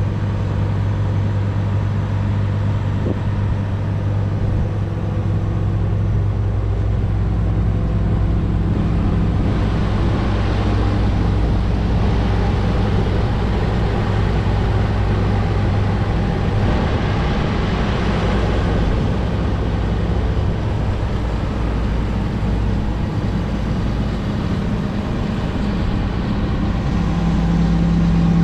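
Komatsu PC400LC-8 tracked excavator's six-cylinder diesel engine idling steadily with a low, even hum. A broader rushing noise swells in for several seconds around the middle, and the tone gets a little louder near the end.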